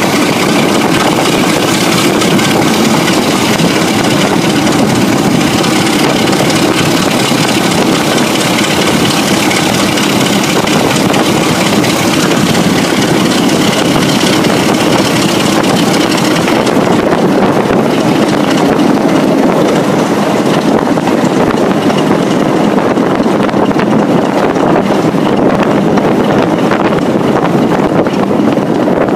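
A British Rail Class 33 diesel locomotive's Sulzer eight-cylinder engine working steadily under power, heard close by from a moving train with wind rushing over the microphone. The high hiss eases a little about halfway through.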